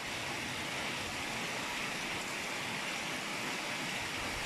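Heavy rain pouring down steadily, splashing onto a flooded street.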